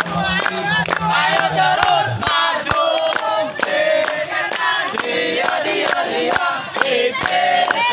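A group of men clapping in unison in a steady rhythm while singing a chant together.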